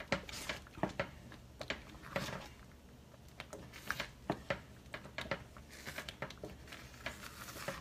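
A wooden spatula scraping and knocking against a stainless steel pan while stirring thick, hot ube halaya, making irregular clicks and short scrapes.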